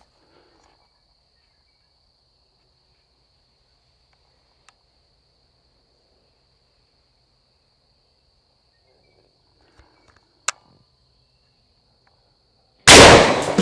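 A single very loud shot from a 12.7x42 (.50 Beowulf) AR-15 rifle near the end, after a long quiet stretch with a faint steady high hum and one sharp click about ten seconds in.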